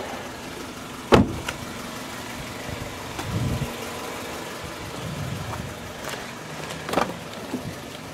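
2005 Toyota Corolla LE's 1.8-litre four-cylinder engine idling steadily. A sharp knock comes about a second in and a smaller one near the end.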